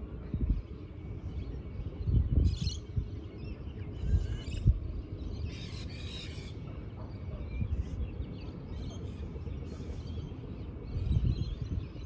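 Gusts of wind rumbling on the microphone, with birds chirping now and then over it, the longest call lasting about a second midway through.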